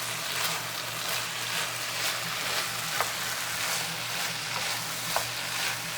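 Vegetables sizzling and frying in a pan over medium-high heat while being stirred, with a few light clicks of the utensil against the pan and a steady low hum underneath.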